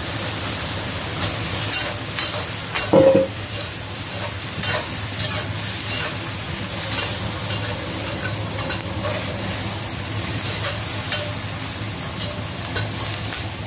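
Stir-frying in a wok: green peppers and sliced meat sizzling steadily in hot oil while a metal spatula scrapes and taps against the pan. One louder clank comes about three seconds in.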